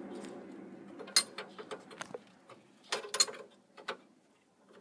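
A scattering of sharp metal clicks and clinks from a flare-nut wrench being fitted onto and worked against an oil cooler line fitting at a truck radiator. The strongest clicks come about a second in and around three seconds in.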